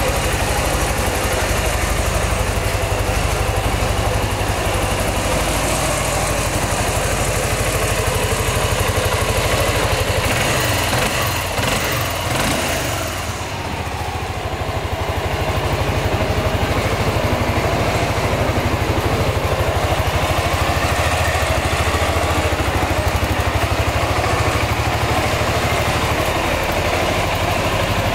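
Suzuki Burgman 400 scooter's single-cylinder four-stroke engine idling steadily, with an even pulse, dipping slightly in level about twelve to fourteen seconds in.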